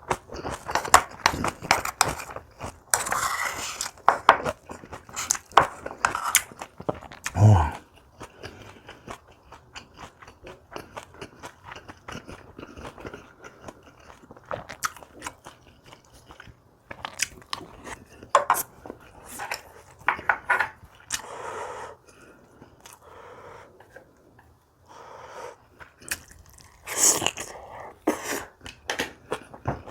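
Close-miked eating: a person bites and chews crunchy kimchi with rice. Crisp crunches and wet mouth clicks come in irregular bursts.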